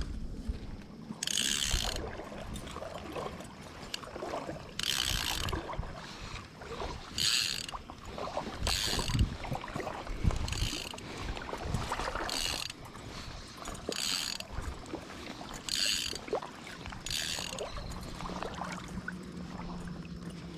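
Fly reel's click-and-pawl drag buzzing in about nine short bursts, one every couple of seconds, as fly line is pulled off the reel. Water or wind rumbles low underneath.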